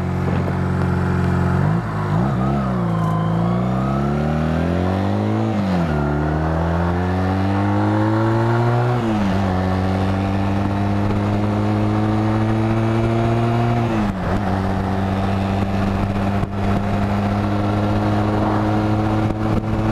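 2005 Honda Rebel 250's air-cooled parallel-twin engine pulling away and accelerating up through the gears. The pitch rises in each gear and drops at each upshift, about three, six and nine seconds in and again near fourteen seconds, then settles into a steady cruise.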